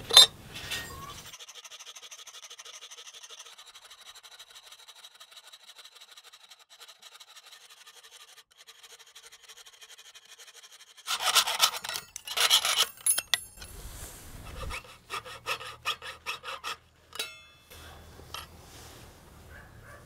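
Jeweler's piercing saw cutting a lure blank out of thin brass sheet: a sharp knock at the very start, then fast, fine sawing strokes, which turn into louder, choppier strokes in bursts from about halfway through.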